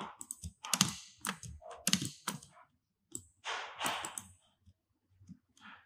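Computer keyboard keys and mouse buttons clicking at irregular intervals, with a brief hiss about three and a half seconds in.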